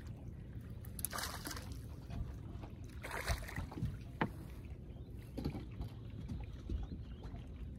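Water splashing as a small redfish is reeled to the boat and lifted out, over a low rumble of wind and water against the hull. There is a sharp click a little after four seconds.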